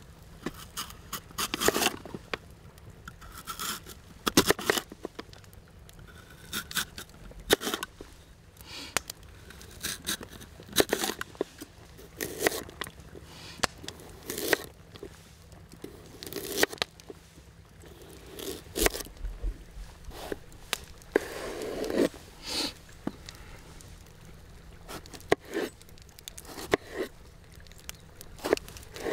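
Kitchen knife slicing firm vegetables (lotus root, carrot, eggplant) on a wooden cutting board: irregular crisp cuts, each ending in a knock of the blade on the board, with some scraping.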